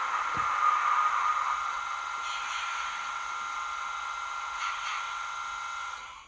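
N scale ALP-45DP model locomotive's DCC sound decoder playing its diesel engine sound through the tiny onboard speaker: a steady hissing drone with a hum, which cuts off suddenly near the end.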